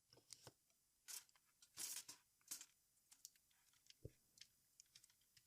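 Faint handling noises from a tape measure opened for repair: scattered small clicks and a few short scratchy scrapes of broken plastic pieces being worked loose around the spring coil, with a soft knock about four seconds in.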